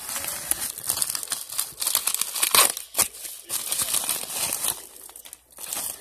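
Paper mailing envelope being torn open and handled: dense crinkling and tearing, loudest about two and a half seconds in.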